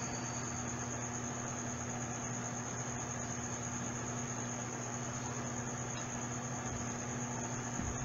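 Steady background noise: a low hum with a continuous high-pitched tone above it.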